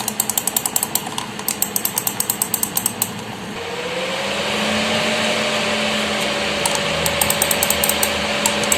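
Graphics card cooling fan running, with a fast, even rattle of clicks, several a second. About four seconds in a rising whine sets in as the fan speeds up and then holds as a steady hum, and the clicking returns near the end.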